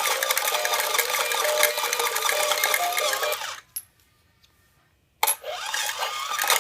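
A toy coin bank's electronic sound effect playing tinny and loud through its small speaker, with clicking from its moving mechanism. It cuts off about three and a half seconds in, a single click follows, and it starts again suddenly a little over five seconds in.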